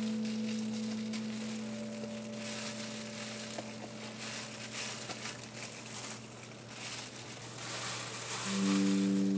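Knife cutting through habanero peppers on a cutting board, with crisp, irregular crunching cuts and the crinkle of plastic gloves. Background music of long held notes plays underneath, and a new chord enters near the end.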